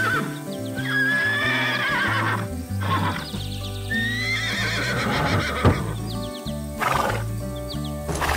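Horse whinnying a few times, cartoon sound effects, over steady background music.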